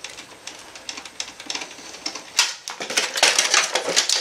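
Rapid clicking and rattling of the printer's plastic parts and sheet-metal chassis as a stuck assembly is worked loose by hand, getting much louder about two and a half seconds in.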